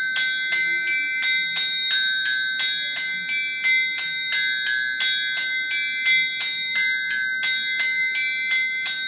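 Blacksmith's anvil struck with two hammers, one in each hand for the master's and the striker's hammer, in a steady rhythm of about three strikes a second. Every blow rings with clear bell-like tones, the pitch shifting from stroke to stroke: the blacksmith's tap language played on the anvil as a percussion instrument.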